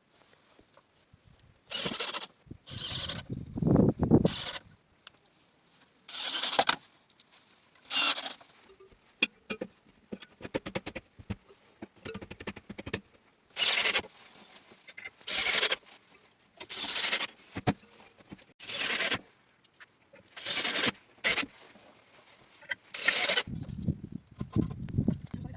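Short rasping strokes of hand-tool work on building materials, one every second or two with uneven pauses, and a few duller thuds near the start and end.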